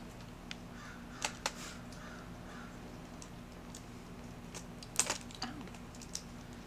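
Scattered clicks and taps of a smartphone being handled and fitted into a ring light's phone clamp, the loudest a quick pair about five seconds in.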